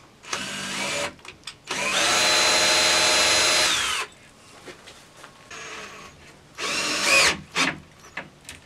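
Cordless drill driving a screw through a plywood door into a small wood block. It runs in three bursts, a short one, a steady one of about two seconds, then another short one near the end, with a few small clicks after.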